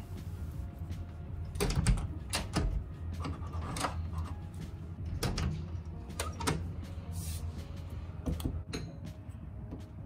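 August Wi-Fi Smart Lock (4th generation) turned by hand, with a series of irregular clicks and knocks from the thumbturn, the bolt and the lever door handle as they are worked. A steady low hum runs underneath.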